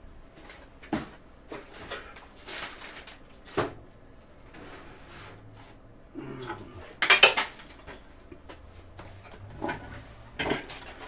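Metal objects clinking and clattering, with a scatter of separate knocks, as things are moved and a metal Stirling engine model on a wooden base is lifted. The loudest clatter comes about seven seconds in.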